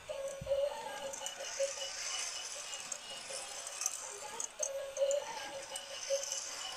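Motorized plastic toy race track running: small toy cars rattle and clatter along the plastic track and lift, with a simple electronic tune playing alongside.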